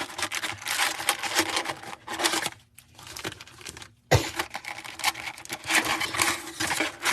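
Foil trading-card pack wrappers crinkling and rustling as the packs are handled and taken out of a card box, with tearing sounds. There is a sharp knock about four seconds in.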